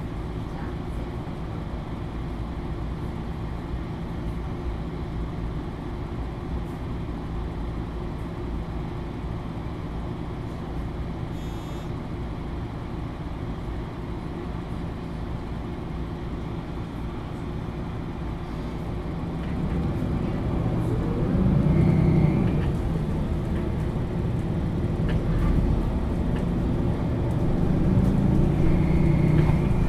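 MAN Lions City A21 NL323 city bus's diesel engine running steadily, heard from inside the bus. About two-thirds of the way through it grows louder, with a rising whine as the bus pulls away and accelerates.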